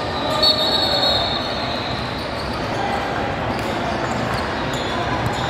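Basketball game noise in a gym: a ball bouncing on the court amid a steady din of players and spectators, with a high held squeak or whistle about half a second in.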